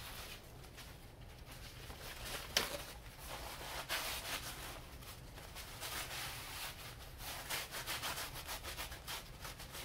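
Paper towels scrubbing over rough concrete in quick rasping strokes, wiping up degreaser and spilled motor oil, with one sharp tap about two and a half seconds in.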